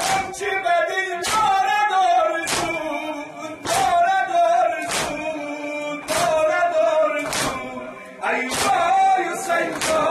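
Chanted Shia noha lament in Persian, sung by a man, with a group of men beating their chests (matam) in time: sharp hand slaps about every 1.2 s.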